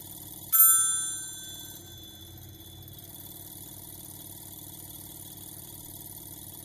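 A telephone ringer's bell gives a single ding about half a second in and rings out for a second or so. Under it runs the steady buzz of a vintage relay-oscillator telephone ringing generator.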